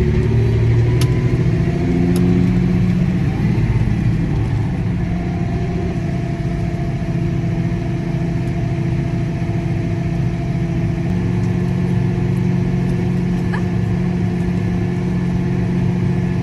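Tractor engine running steadily while pulling a grain cart, heard from inside the cab. The engine note shifts slightly in the first few seconds, then holds even.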